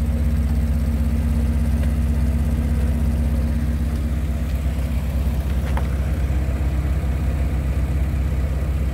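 An engine idling steadily, a constant low hum with one faint click partway through.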